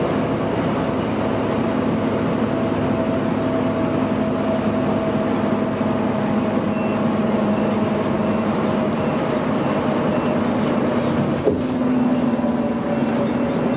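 Scania K310UB city bus heard from inside the passenger cabin while under way: the rear-mounted five-cylinder diesel engine's steady drone with driveline hum and road noise. A single short knock near the end.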